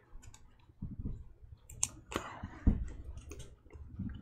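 Topps Chrome baseball cards being flipped and slid through the hands: scattered light clicks and rustles of slick card stock, with a couple of low thumps, the strongest a little past halfway.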